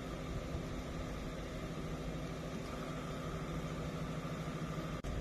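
Ford Crown Victoria Police Interceptor's 4.6-litre V8 idling steadily.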